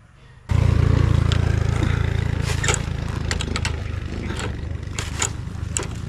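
Yamaha DT125's single-cylinder two-stroke engine idling steadily, starting abruptly about half a second in. Over it come sharp metal clicks and scrapes from an adjustable wrench turning the rear brake adjuster.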